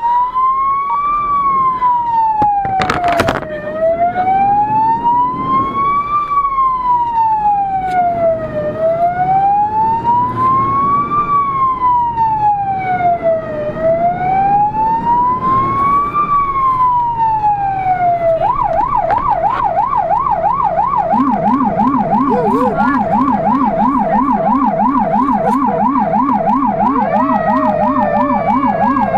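Fire engine's electronic siren on an emergency run: a slow wail rising and falling every few seconds, switching about eighteen seconds in to a fast yelp. A few seconds later a much lower-pitched rumbler yelp joins it, and near the end a slowly falling tone enters. A short loud burst comes about three seconds in.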